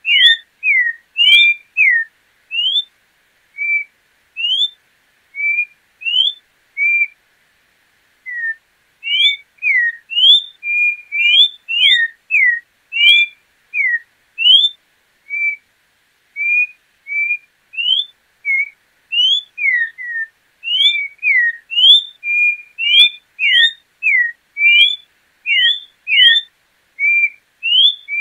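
João-pinto (orange-backed troupial) singing: a long series of loud, clear whistled notes, each a short rising or falling slur, about one to two a second, with a brief pause around eight seconds in.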